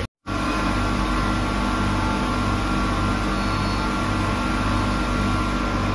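Affolter AF90 CNC gear hobbing machine running steadily as it cuts watch gear teeth under a flood of cutting oil: an even machine hum with a faint high steady whine and a low hum that pulses regularly.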